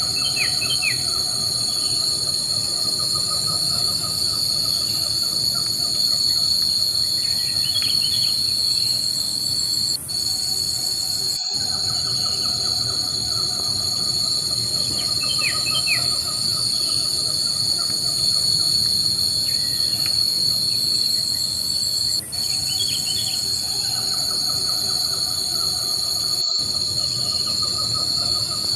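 Steady, high-pitched drone of insects (cicadas or crickets) with short, faint bird chirps about every seven seconds.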